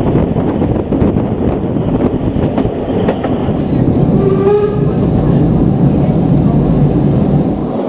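Narrow-gauge steam train rolling along, heard from a carriage: a steady loud rumble and rattle of the coaches and wheels on the track. The sound changes abruptly a little over three seconds in, and a short tone sounds over the rumble about halfway through.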